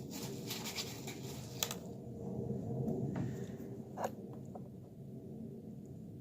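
Faint handling noise of small objects being picked up and shown: light clicks and scratchy rustling in the first two seconds, then a single click about four seconds in, over a low steady hum.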